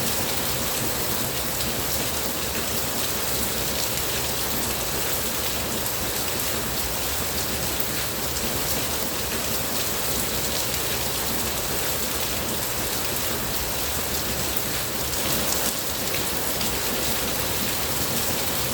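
Steady rain falling and pattering on a surface, an even hiss of many drops, a little louder for a moment about fifteen seconds in.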